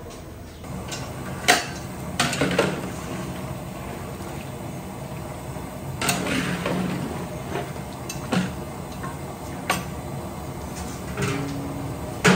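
Long metal ladle knocking and scraping against a large aluminium cooking pot as pieces of raw meat are stirred, in irregular clanks and scrapes. The sharpest knocks come about one and a half seconds in and near the end.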